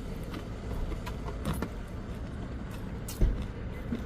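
Steady low rumble of motor vehicles, with small scattered clicks and a single thump about three seconds in.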